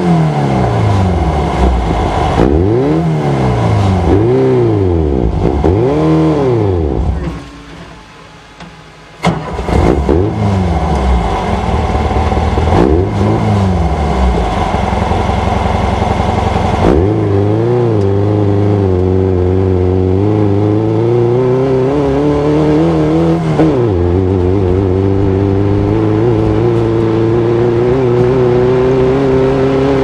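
Air-cooled VW flat-four engine of a Class 11 Baja Bug race car, heard onboard, revving up and down every second or so over rough sand, then dropping away for about two seconds a third of the way in. In the second half it pulls hard with the pitch climbing steadily, with an upshift about four-fifths of the way through.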